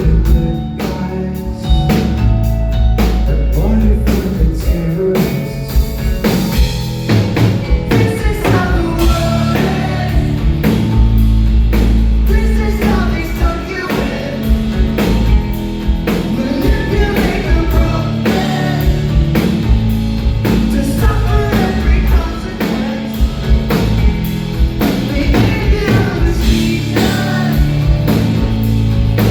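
Live rock band playing loud: a drum kit keeps a steady beat over heavy bass and distorted electric guitars.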